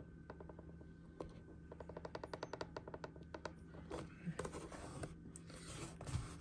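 Faint handling of a wooden cigar box: a quick run of small clicks, about ten a second for under two seconds, then scraping and rustling as hands work the box open.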